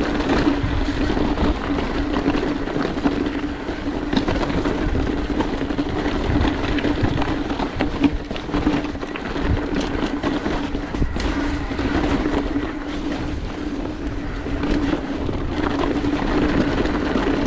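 Mountain bike rolling fast down a dirt trail: tyres on dirt and rock with frequent clicks, knocks and rattles, over a steady hum and low rumble.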